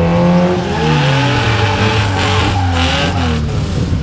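Drag-race cars at the start line, engines revving hard and then falling in pitch while rear tyres spin and squeal in a burnout, sending up tyre smoke.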